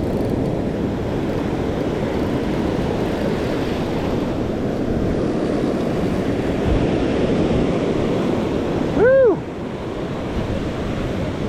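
Ocean surf washing steadily onto the beach, with wind buffeting the microphone. About nine seconds in, a short rising-and-falling vocal sound, like a brief exclamation, rises above the surf.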